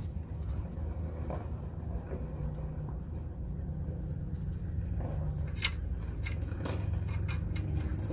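Steady low background rumble, with a run of light metallic clicks and clinks from about five seconds in as nuts and tools are handled while the lower ball joint is fitted to the lower suspension arm.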